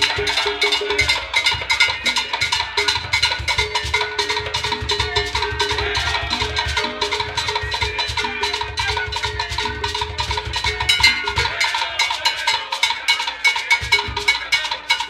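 Live Cuban rumba played on hand drums, with a fast, even pattern of sharp wooden clicks over a pulsing low drum.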